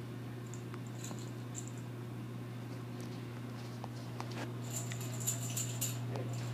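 Quiet room with a steady low hum, a few faint scattered clicks, and a brief spell of light rustling about five seconds in.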